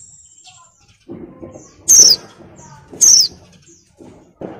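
Female white-eye (pleci) in breeding condition giving two sharp, short calls about a second apart, each falling in pitch. This is the kind of call used to provoke male white-eyes into song.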